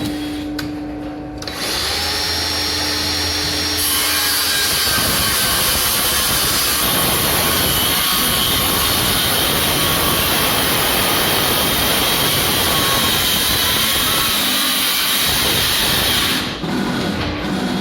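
A power tool starts about a second and a half in, runs hard and steadily under load, and cuts off about a second before the end.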